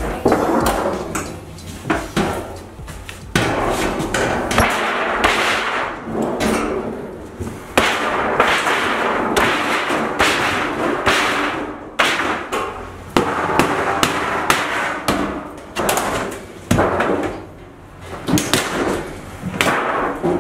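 Thin sheet-metal interior wall panel of a school bus being bent and pulled off the wall, flexing with metallic rushes and clanking with many uneven knocks and rattles.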